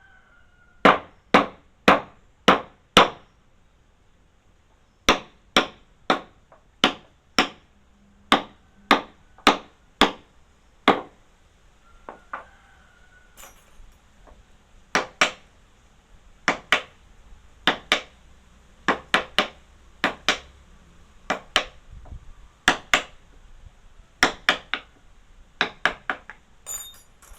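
Repeated hammer strikes in woodworking, about two a second in runs of four or five with short pauses, turning to more scattered single and double blows in the second half.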